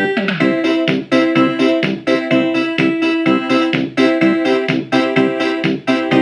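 Casio HT-3000 synthesizer playing a steady, evenly pulsed chord pattern using its Casio Chord accompaniment feature, with sustained keyboard tones over the beat.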